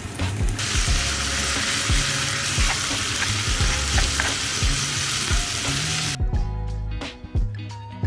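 Water spraying in a steady hiss while potted plants are watered, cutting off suddenly about six seconds in, over background music; after that only the music plays.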